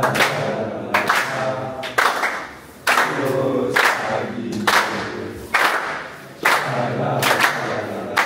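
A football team's players chanting a song together in unison, a celebration chant, with a sharp clapping beat about once a second.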